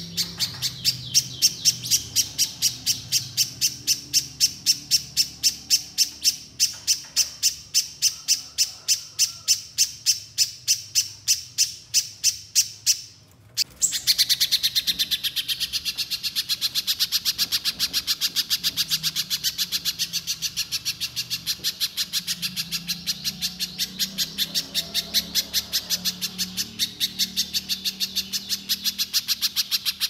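Little spiderhunter singing a long series of sharp, high repeated notes, about three a second. After a brief break about 13 seconds in, the notes come in a faster, denser run for a few seconds, then settle back into the spaced series.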